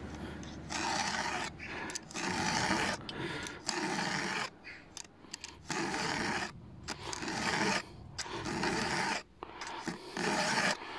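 Round chainsaw file being drawn by hand across a saw-chain cutter tooth, a rasping stroke roughly once a second. It is sharpening the tooth and forming its C-shaped cutting edge.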